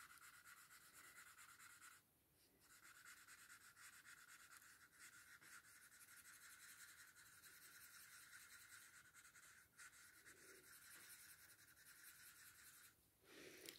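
Faint pencil scratching on paper from small back-and-forth shading strokes, with a brief pause about two seconds in.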